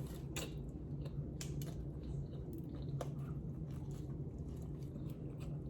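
A person chewing food close to the microphone, with a few short, soft mouth clicks, over a steady low hum.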